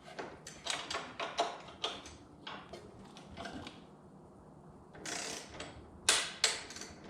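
Socket ratchet clicking in quick strokes as a luggage-rack mounting bolt is run in and tightened, with a lull around the middle and a few sharper clicks near the end.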